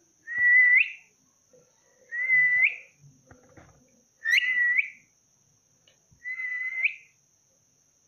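Indian ringneck parakeet whistling four times, about every two seconds: each a steady note held about half a second that flicks sharply upward at the end.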